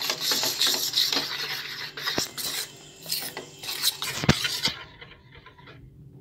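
Metal spoon stirring and scraping a thin flour-and-water batter in a steel bowl, clinking against the bowl's side. A sharp clink comes a little past two-thirds through, after which the stirring quietens.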